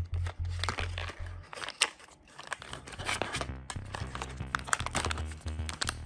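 Crinkling and rustling of a black plastic blind bag being handled and squeezed, with crackles throughout, over background music with a bass beat that drops out briefly around two seconds in.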